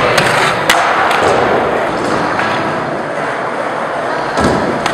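Skateboard wheels rolling on a concrete floor, with several sharp clacks of the board in the first second and a heavier thud near the end, typical of a trick being popped and landed.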